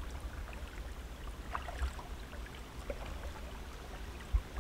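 Soft drips and small splashes of a paddle on calm river water, over a low steady rumble, with one dull knock near the end.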